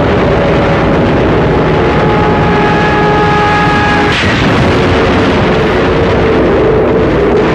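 Loud, steady aircraft engine drone over a dense rumble, with a few held engine tones that stop at a short sharp crack about four seconds in.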